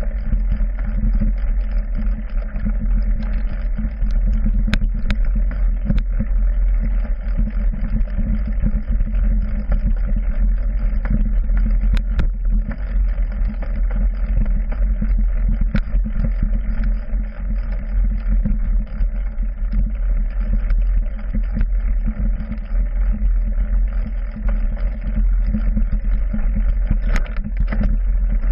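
Steady rumble of a mountain bike being ridden over a rough forest trail, picked up through the frame by a handlebar-mounted action camera, with scattered sharp knocks from bumps.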